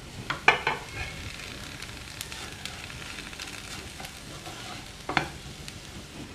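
Fish and onion fry sizzling in oil in a pan while being stirred, with a spatula clattering against the pan about half a second in and again about five seconds in.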